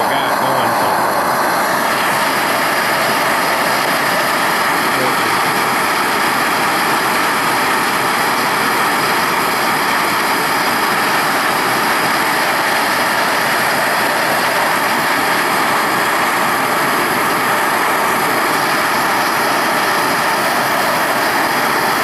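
Bernz-O-Matic hand torch blasting its flame into a small pipe furnace, a steady, loud, unbroken rush of burning gas. The furnace is at full heat, bringing a crucible of metal up to melt.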